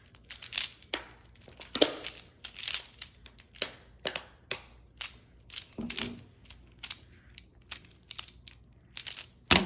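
Plastic Pyraminx puzzle being twisted fast during a speed solve: a rapid, irregular run of sharp plastic clicks and clacks. A louder knock comes near the end.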